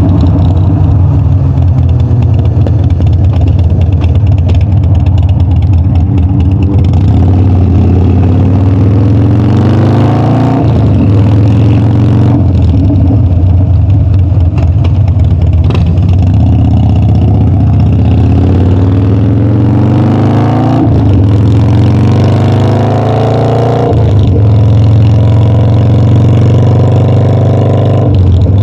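Harley-Davidson Dyna's air-cooled V-twin engine and exhaust while riding: the engine note climbs several times as the bike accelerates, each climb cut off by a drop in pitch at a gear change, with steadier cruising between.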